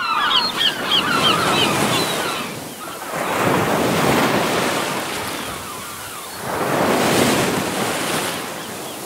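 Ocean surf washing over a rocky shore, swelling into two breaking waves about three and six and a half seconds in. Quick high chirping calls sound over the first two seconds.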